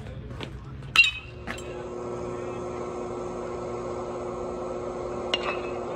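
Metal baseball bat striking the ball: a sharp, ringing ping about a second in, and a second ping near the end. A steady hum runs under the second half.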